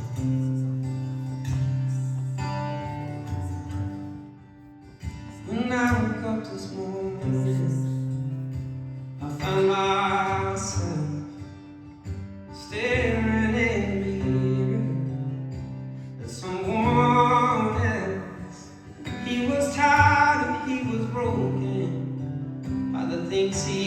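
Acoustic guitar playing under a sung melody that comes in phrases every three to four seconds, starting about five seconds in: a live song.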